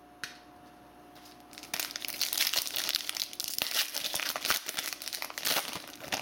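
Foil wrapper of a 2018 Panini Phoenix football card pack being torn open and pulled apart by hand, a dense crinkling that starts after about a second and a half of near quiet.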